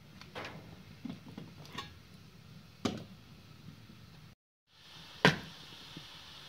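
A few light clinks and knocks as a glass teapot is set on top of a metal kettle, the clearest about three seconds in. After a short dropout comes one loud, sharp crack over a steady hiss.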